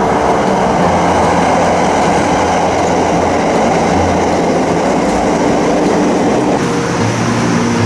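A JR limited express Thunderbird electric train, nine cars long, pulling into the platform and running past at slowing speed. Its wheels and running gear make a steady, loud rolling noise on the rails.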